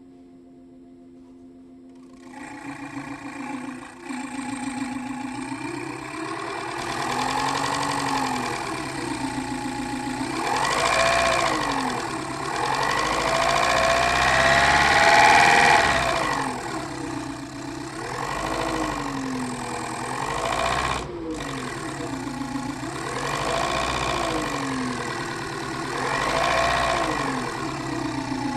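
Sirocco fan fitted with cardboard, spun with a finger or piece of sponge held against it, giving an engine-like buzz that rises and falls in pitch over and over like a car engine being revved in neutral. It starts about two seconds in and is loudest about halfway through.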